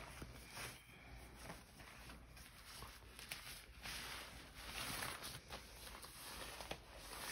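Faint, irregular crinkling rustle of vinyl plastic pants and the disposable diaper beneath them as they are pulled up and adjusted by hand, with a few soft clicks.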